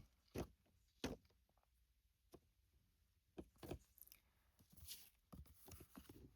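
Faint, scattered handling sounds: a few light taps and a brief soft rustle as fabric strips are placed and pressed down on a glued board.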